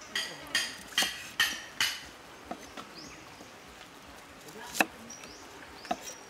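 Knife chopping on a wooden chopping block, about five strokes in the first two seconds, followed by a couple of isolated sharp knocks. Birds chirp faintly in the background.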